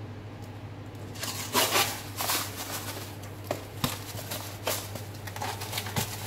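Brown sugar being shaken out of a cardboard carton onto flour and almond powder in a stainless steel tray: spells of granular hissing and rustling starting about a second in, with a few light knocks, over a steady low hum.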